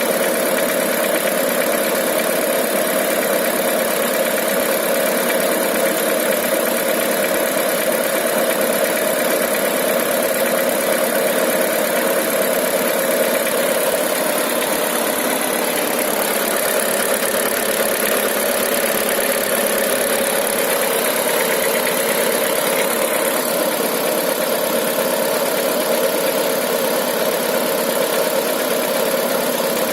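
Mitsubishi 4G93 GDI four-cylinder petrol engine running steadily with a knock, which the owner takes for a worn piston pin (wrist pin).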